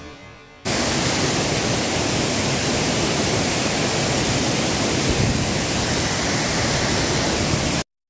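Steady rush of a waterfall and rocky stream, starting abruptly about a second in and cutting off sharply just before the end.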